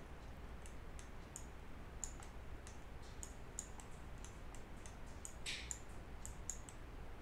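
Light, irregular clicks from working a computer's mouse and keyboard, a few a second, with a short hiss about five and a half seconds in.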